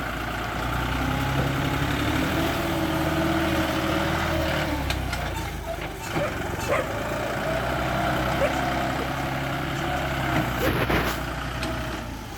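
Bulldozer's diesel engine running, its note lifting about two seconds in, easing off around five seconds, then picking up again, with a few short sharp knocks later on.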